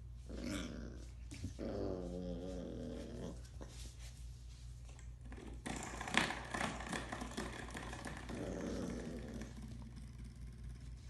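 Puppy growling in short spells, with a noisy stretch of rustling and clicks in the middle, loudest about 6 s in.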